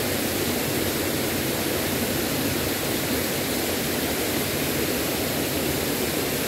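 Running water of a small rocky stream, a steady even wash of noise with no distinct splashes or other events.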